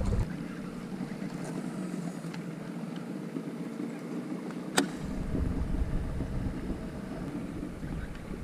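Wind buffeting the microphone over water lapping against a kayak on open water. The low wind rumble drops away for a few seconds and comes back about five seconds in, just after a single sharp click.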